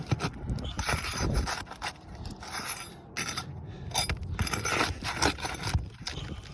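A roofing nail being pried out from under an asphalt shingle: irregular scraping and clicking of the tool against the shingle and nail until the nail pops loose.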